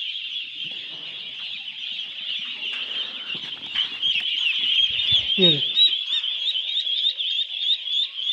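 Ducklings peeping, high-pitched and continuous. About halfway through, the peeps turn louder and regular, about three a second.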